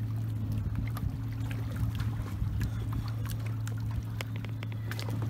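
Boat engine running at a steady pitch, with water trickling and scattered small ticks and splashes over it.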